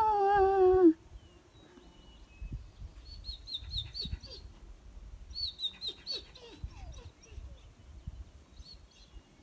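A loud, short howl that wavers and falls in pitch, ending about a second in. Then a small bird sings two quick runs of high, repeated chirps, about four a second.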